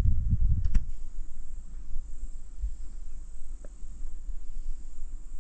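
Insects shrilling steadily at a high pitch over a low background rumble, with a few low thumps and rustles in the first second.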